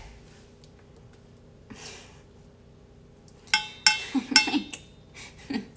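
Quiet kitchen room tone, then about three and a half seconds in a quick cluster of light, ringing clinks and knocks as metal kitchen utensils are handled on the counter.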